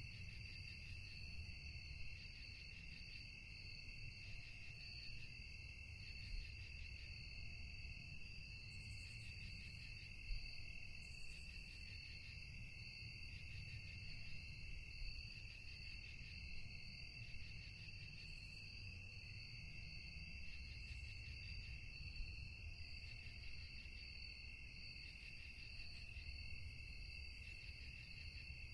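Crickets chirping: a continuous shrill trilling at two high pitches, over a low rumble.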